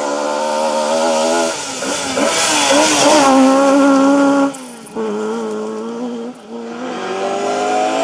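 Ford Escort Mk1 rally car's engine working hard on gravel, its pitch rising and falling through gear changes, with a hiss of gravel and tyres about two to three seconds in. The note breaks off suddenly about halfway through. A second rally car's engine then comes in, revving with a steadily rising pitch.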